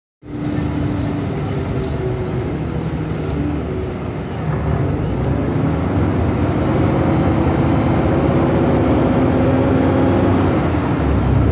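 Cummins ISL9 diesel engine and drivetrain of a 2012 Gillig Advantage transit bus, heard from inside the cabin, running steadily and growing louder from about four seconds in as the bus gets under way. A thin, steady high whine comes in about six seconds in and stops near the end.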